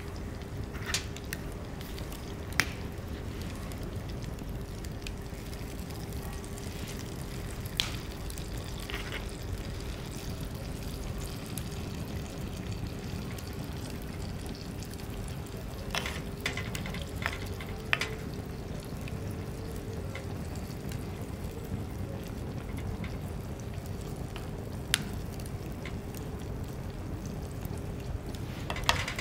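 Oil simmering and sizzling in a pan for ajillo, with a steady low rush and scattered sharp pops.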